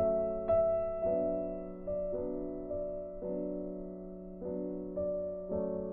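Background music: a slow, gentle melody on an electronic keyboard with a piano sound, single notes struck about once or twice a second over a steady low held note.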